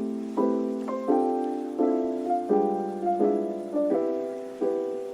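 Background music: soft piano chords struck about every three-quarters of a second, each ringing and fading.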